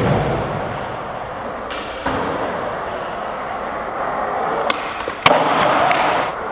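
Skateboard rolling fast over concrete, a steady roar from the wheels, with a sharp clack about four and a half seconds in and a louder one about half a second later.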